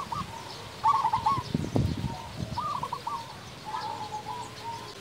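Zebra dove (perkutut) cooing its song: three short phrases of quick, wavering notes with pauses between them, plus some low thumps near the middle.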